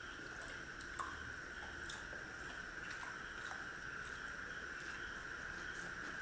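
People eating by hand: chewing, with small clicks and taps of fingers and food against plates, over a steady background hiss.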